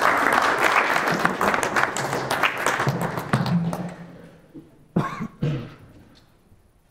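Congregation applauding, dying away over about four seconds, then two sharp knocks from a handheld microphone being handled at its stand.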